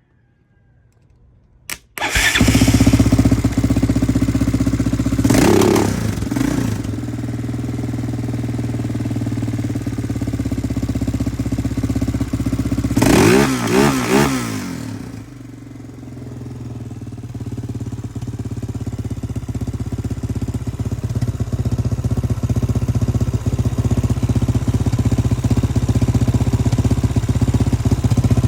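2003 Yamaha Raptor 660's single-cylinder four-stroke engine starting about two seconds in and idling, revved briefly twice by the throttle before settling back to idle.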